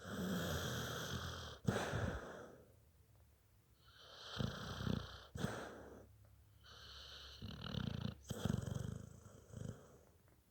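Snoring, three long noisy breaths a few seconds apart.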